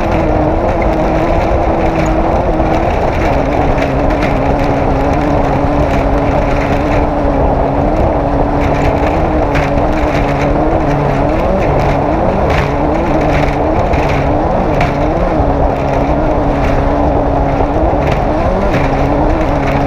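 Off-road race vehicle's engine running hard at a near-steady pitch, the revs briefly rising and dipping several times, with frequent short knocks over it.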